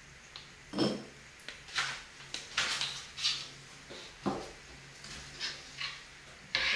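Kitchenware being handled: a string of about ten short knocks, clacks and rustles, with two duller thuds about one second and four seconds in.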